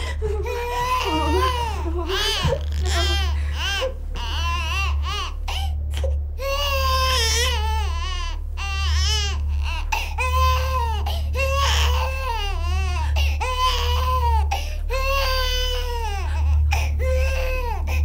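Newborn baby crying in a run of repeated wails, each about half a second to a second long, over a low steady rumble.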